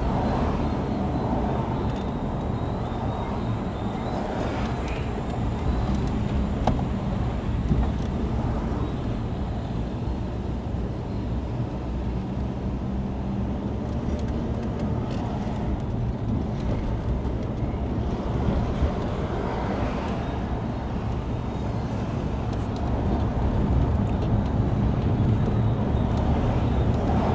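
Car engine and road noise while driving: a steady low rumble.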